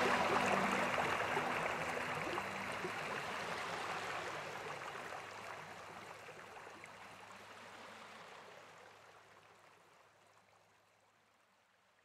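Small sea waves washing up on a sandy beach: a steady rushing hiss of surf that fades gradually away to nothing near the end.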